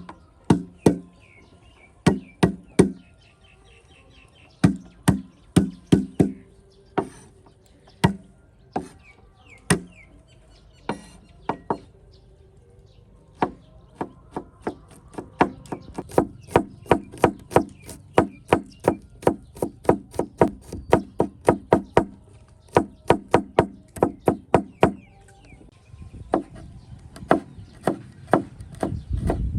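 Knife chopping on a wooden cutting board. Scattered strokes at first, then a fast, even run of chops, about three to four a second, through the middle.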